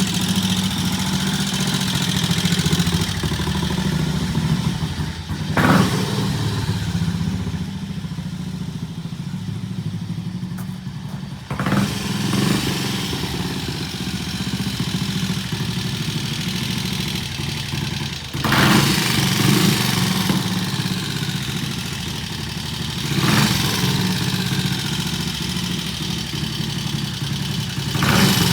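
Triumph T20 Tiger Cub single-cylinder four-stroke motorcycle engine running steadily, with a brief louder surge about every five or six seconds.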